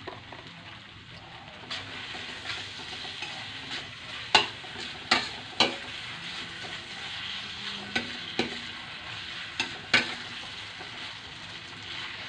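Fried instant noodles sizzling in a stainless steel wok as a spatula stirs and tosses them, with a series of sharp clacks of the spatula against the pan from about a third of the way in.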